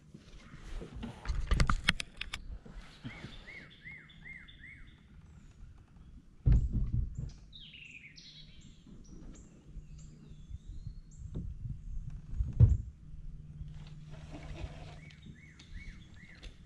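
Songbirds calling from the shoreline trees: a quick series of four or five short chirps, repeated twice, and high falling whistles in between. Several dull knocks and bumps from handling gear in the kayak break in, the loudest about twelve seconds in.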